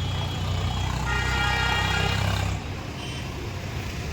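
A motor vehicle engine running close by, a steady low rumble that drops away about two and a half seconds in. A high steady tone sounds over it for about a second and a half.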